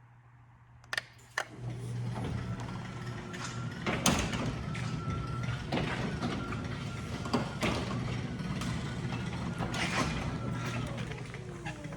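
LiftMaster 8500W wall-mount jackshaft garage door opener clicking on about a second in, then running with a steady hum while the sectional door rattles and clanks through its travel.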